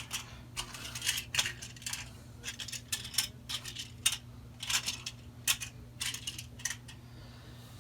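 Small plastic toy train wagons and packaging being moved about by hand: a run of irregular light clicks and clatters over a steady low hum.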